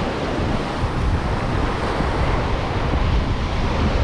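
Ocean surf breaking and washing up a sand beach, with wind buffeting the microphone as a steady low rumble.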